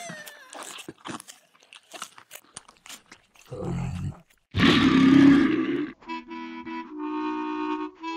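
Crisp crunching bites and chewing of an apple for about three seconds, followed by a loud throaty vocal noise for the monster, the loudest sound here, about five seconds in. Held music chords on a reedy wind instrument take over about six seconds in.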